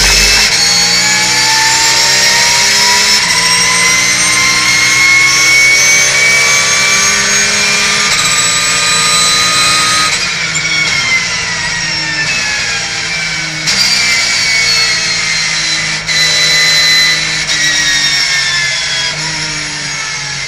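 Porsche 911 GT3 Cup race car's flat-six engine heard from inside the cockpit. It pulls hard up through the gears, its pitch rising and then dropping sharply at each quick upshift. About halfway through the pitch falls away as the car slows, with further steps at the downshifts.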